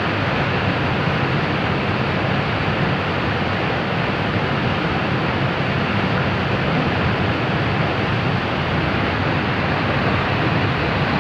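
Muddy floodwater rushing fast through a channel, a steady loud wash of noise with no breaks.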